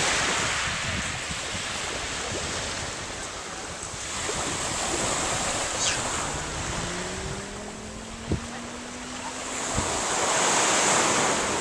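Small waves breaking and washing up a shingle beach, a steady hiss of surf that swells and eases, with wind buffeting the microphone. A faint rising hum sits in the background for a few seconds in the second half.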